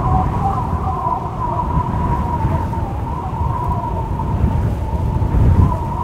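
Strong wind howling: a wavering whistle at a nearly steady pitch over a low, gusty rumble, with a stronger gust about five and a half seconds in.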